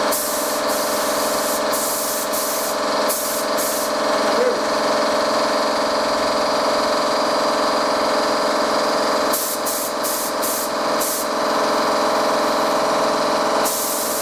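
Compressed-air spray gun spraying acrylic primer in repeated short hissing bursts: several in the first few seconds, a cluster about two-thirds of the way through, and one more near the end. Under them runs a steady mechanical hum.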